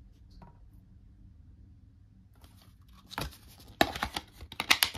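Hands handling a plastic DVD case and disc: faint rubbing at first, then from about three seconds in a quick run of sharp plastic clicks and knocks as the disc is fitted into the case.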